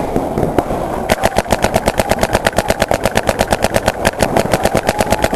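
Paintball marker firing a long rapid string of shots, about ten a second, starting about a second in.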